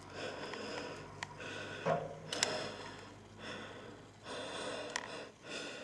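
A person breathing heavily close to the microphone, in rhythmic breaths about one a second, with a couple of sharp clicks near the middle.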